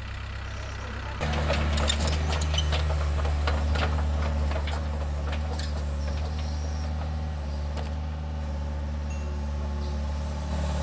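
Doosan DX55 mini excavator's four-cylinder Yanmar 4TNV diesel engine running steadily, getting louder about a second in, with a clatter of clicks and knocks from the moving machine for a few seconds after that.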